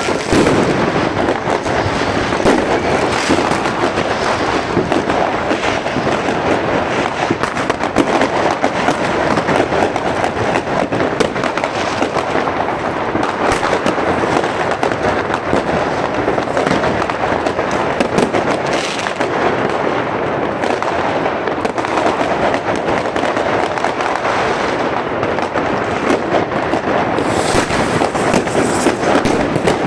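Fireworks and firecrackers going off all around in a dense, unbroken crackle of bangs, many overlapping each second with no pause.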